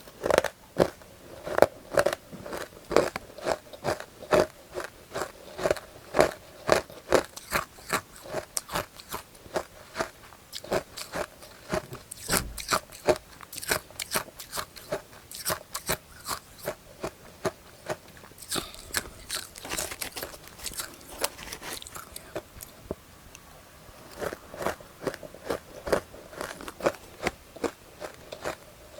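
Close-miked bites and chewing of matcha-powdered ice: sharp, repeated crunches, about two to three a second, with a stretch of finer, crackling crunches partway through.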